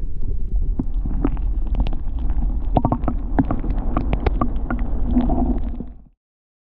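Muffled low rumble of water picked up through an underwater camera's housing, with scattered clicks and knocks. It cuts off suddenly about six seconds in.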